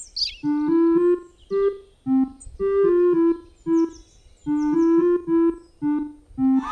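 Background music: a simple keyboard melody played in short, separate piano-like notes, phrase after phrase, with a brief falling whistle right at the start.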